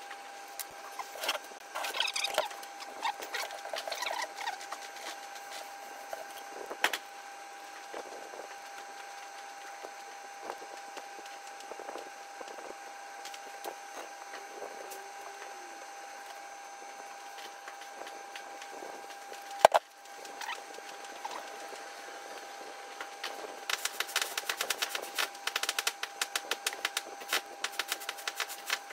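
Small handling sounds of work on a slate clock case: scattered taps and light knocks, with one sharp knock about two-thirds of the way through. Near the end a fast run of scratchy strokes as a cloth rubs blacking onto the slate. A steady faint hum runs underneath.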